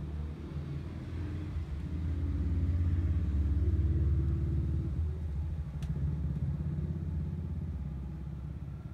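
Low engine rumble that swells to a peak about three to four seconds in and then fades, like a motor vehicle passing by.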